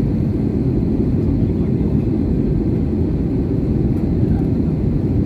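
Jet airliner cabin noise on final approach, heard from a window seat beside the engine: a steady, even rumble of engine and airflow.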